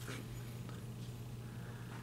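Faint clicks of a small plastic Transformers action figure being handled and its parts moved: one sharp click right at the start and a fainter one just under a second in, over a steady low hum.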